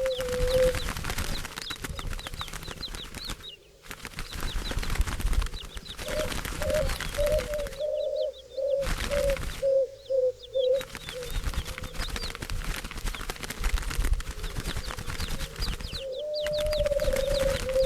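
Doves' wings flapping and rustling in a dense patter, with low repeated purring coos in stretches at the start, around the middle and near the end. The sound cuts out abruptly for a moment several times.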